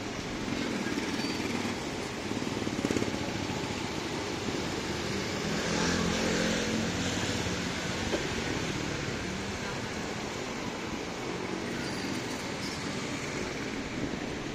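Street traffic noise, with a motorcycle engine passing and loudest about six to eight seconds in.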